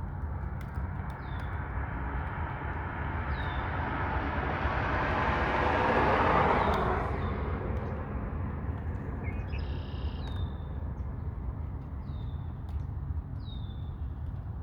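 Outdoor ambience over a steady low rumble, with a bird giving short, falling chirps roughly every one to two seconds. A broad rushing noise swells to a peak about six seconds in and fades away again, like something passing by.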